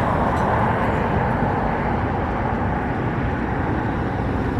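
Boeing 787's jet engines making a steady, even noise during takeoff.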